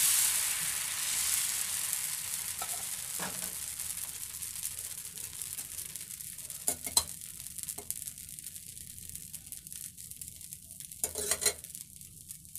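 Dosa batter sizzling on a hot griddle tawa just after being poured and spread, the hiss strongest at first and fading steadily as the batter sets and bubbles. A few short clicks sound about seven seconds in and again near the end.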